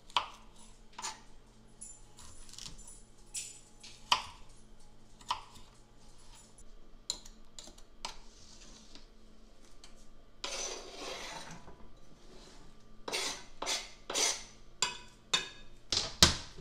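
Chef's knife chopping vegetables on a plastic cutting board: irregular sharp knocks of the blade on the board. A brief scraping sound comes a little past the middle, and the knocks come quicker and closer together near the end.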